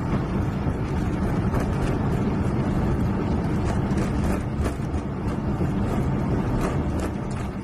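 Airliner landing rollout heard inside the cockpit: the steady, deep rumble of reverse thrust and wheels on the runway just after touchdown, with a few light rattles.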